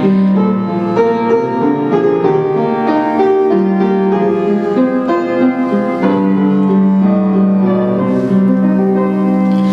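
Instrumental piano interlude of a gospel hymn between sung verses: chords with a melody above them and long-held low notes, no voices.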